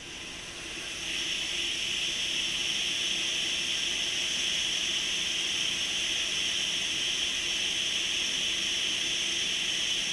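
Hot air rework station blowing a steady hiss of air, which builds up over about the first second. It gives assistive heat to the board while the soldering iron works a small component.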